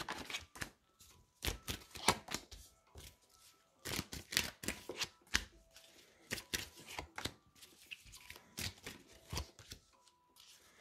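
Tarot cards being shuffled and dealt onto a cloth-covered table: irregular sharp clicks and soft slaps of card on card and card on cloth.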